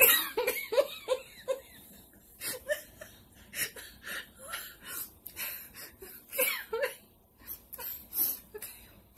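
A woman laughing: a quick run of short chuckles in the first second and a half, then breathy giggles and snickers that stop and start.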